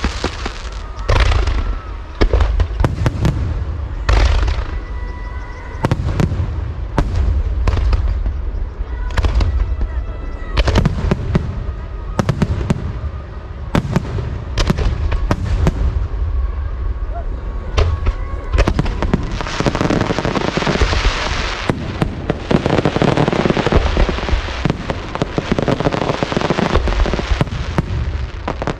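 Aerial fireworks show: shells bursting one after another with deep booms, turning about two-thirds of the way through into a dense crackling barrage.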